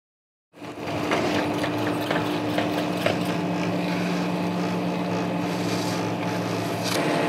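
A steady machine hum with several held low tones and a few faint clicks, starting about half a second in.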